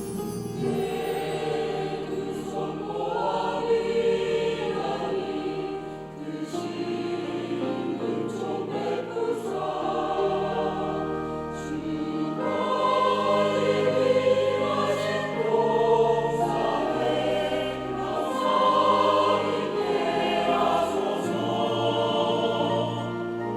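Church choir singing a Korean hymn, with sustained bass notes beneath the voices.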